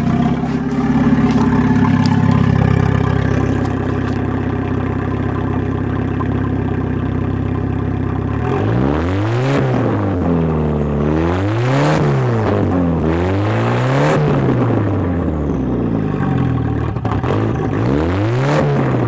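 Turbocharged engine of a Swedish car just cold-started, idling steadily, then revved about four times from about eight seconds in, each rev rising and falling in pitch. It sounds down on one cylinder, with one cylinder running low.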